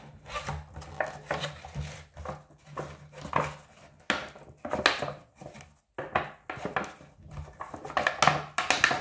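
Cardboard packaging handled and pried open with gloved hands: irregular scraping, rubbing and tapping of cardboard as the sleeve is worked off a small box.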